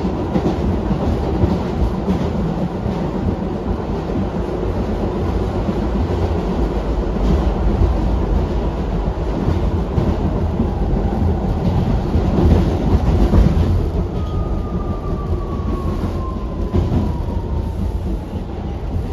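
R62A subway train running through the tunnel, heard from on board: a steady heavy rumble with wheel clatter. In the last few seconds a faint tone slides slowly down in pitch.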